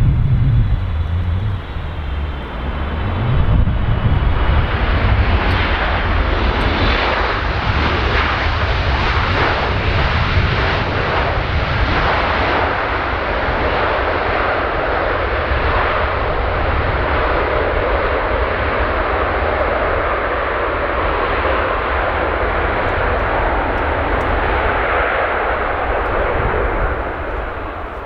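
A Boeing 777F freighter's twin GE90 turbofan engines heard loudly as the aircraft arrives to land, a steady, dense jet noise that falls away near the end.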